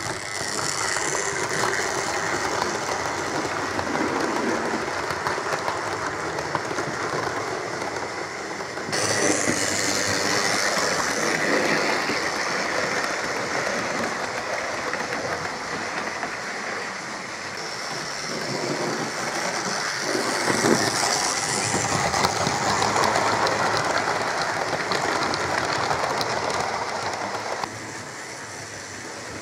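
Hornby OO-gauge model trains running on track: small electric locomotive motors whirring and wheels clattering over rail joints and points. The sound steps up abruptly about nine seconds in and drops away near the end.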